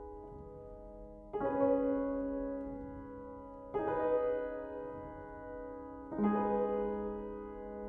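Background piano music: slow, sustained chords, with a new chord struck three times about two and a half seconds apart, each ringing on and fading.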